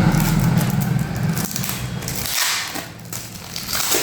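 Plastic packaging crinkling and crackling as it is cut and pulled open to free an item stuck inside. A steady low hum runs under it and cuts off suddenly a little over two seconds in.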